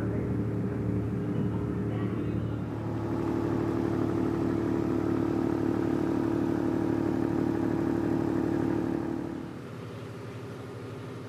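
Steady drone of a tugboat's engine-room machinery: an even hum with a low tone and a higher one held level. It drops sharply in level about nine and a half seconds in.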